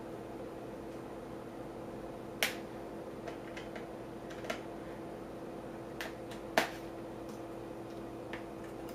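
Scattered sharp clicks and taps of cable plugs being handled and plugged into a Raspberry Pi, about five in all, the loudest about two and a half and six and a half seconds in, over a steady low hum.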